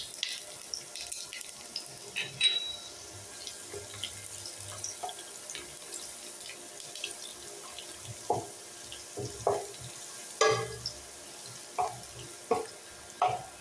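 Sliced onion frying in hot oil in a non-stick wok, a steady sizzling hiss, with short knocks of a wooden spatula against the pan as the onion is stirred, most of them in the second half.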